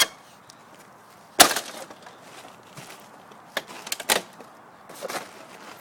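Sharp cracks and knocks of a stuck laser-printer part being forced loose by hand. The loudest crack comes about a second and a half in, with a few more around three and a half to four seconds and near the end.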